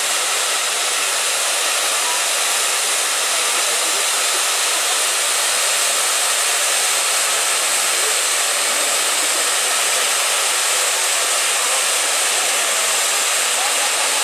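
Two hand-held tube fireworks (tezutsu hanabi) spraying fountains of sparks with a steady, loud hiss.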